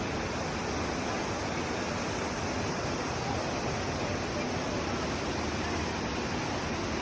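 Steady rushing of flowing water, an even noise that holds without change.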